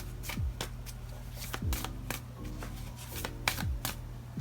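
Oracle or tarot cards being shuffled by hand, a quick run of crisp card snaps and flicks. Under it plays soft background music with deep kick-drum notes that drop in pitch about once a second.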